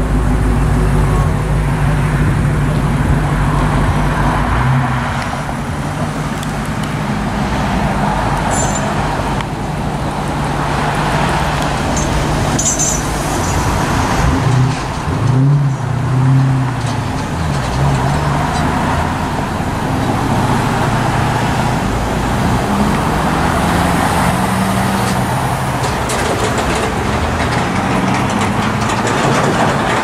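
Road traffic on the street: cars passing close by, their engine hum and tyre noise swelling and fading one after another.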